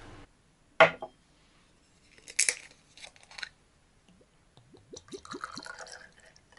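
A clear spirit poured from a glass bottle into a small drinking glass: a few glugs rising in pitch as the glass fills, near the end. Before it, a sharp click about a second in and some handling of the bottle.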